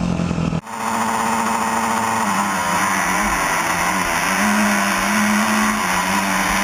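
Off-road vehicle engine running at a steady speed. About half a second in there is an abrupt cut to another engine running at a slightly higher, wavering pitch.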